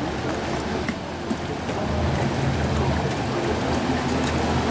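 Sightseeing boat's engine running with a low steady hum as the boat comes in to the landing, over the rushing of the river. The engine grows louder about two seconds in.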